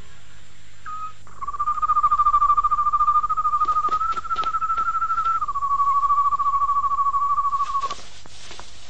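A night animal's fast trill: one long, high, evenly pulsing call lasting about six seconds, which steps up in pitch partway through and then drops back down. A short note of the same kind comes just before it.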